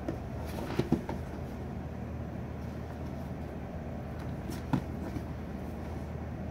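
Cardboard product boxes being handled and shifted, giving a few soft knocks about a second in and again near five seconds, over a steady low hum.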